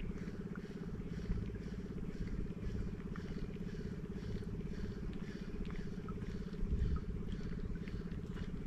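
A small engine running steadily with a fast, even pulse, with faint light ticks over it.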